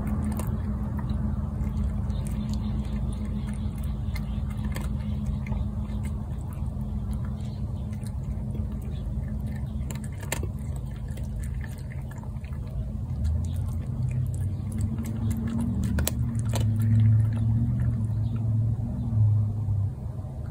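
Cat growling low and steadily over its food, a warning at the other cat eating beside it. The growl grows louder in the last several seconds.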